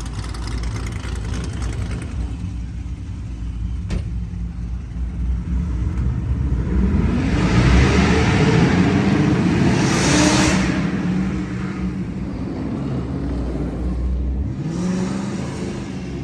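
Modified V8 car exhaust rumbling, then revved up in a rising pull from about seven seconds in that peaks near ten seconds with a rush of hiss. A second, shorter rise follows near the end.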